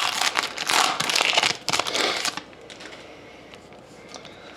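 A trading card pack wrapper being torn open and crinkled for about two and a half seconds, then only faint light clicks.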